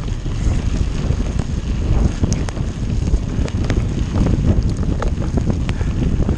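Wind buffeting the microphone over the rumble of mountain bike tyres on a rough grassy track, with scattered rattles and clicks from the bike as it rides over bumps.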